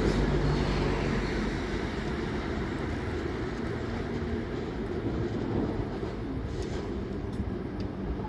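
A train rolling through the station: a steady low rumble of wheels and running gear that eases off slightly, with a few faint clicks near the end.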